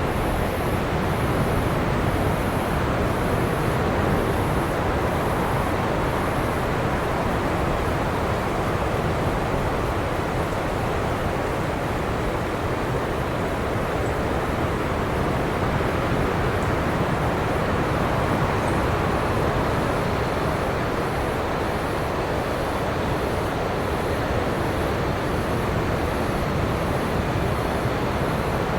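Surf washing steadily onto a beach, a constant rushing wash of waves. A faint, high rhythmic pulsing, a little over one pulse a second, runs behind it for the first few seconds and returns in the second half.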